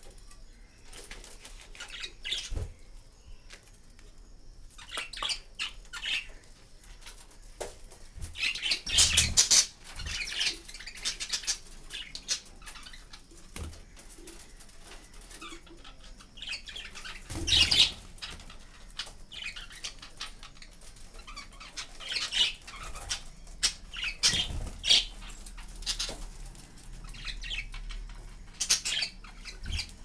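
Caged budgerigars fluttering their wings and calling in irregular bursts, the loudest about nine seconds and eighteen seconds in.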